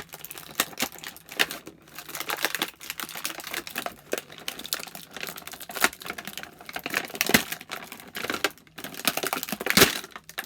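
Hands handling a boxed action figure and its plastic packaging: a busy, irregular run of small clicks and crinkles, with a couple of sharper clicks near the end.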